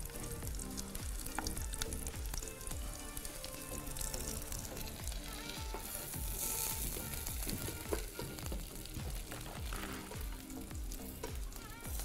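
Vegetables and lemon sizzling as they grill, with the sizzle swelling about six seconds in. Background music with a steady beat plays underneath.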